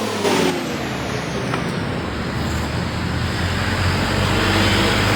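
Electric fan running: a steady low motor hum with a rush of air, the hum growing slightly stronger toward the end.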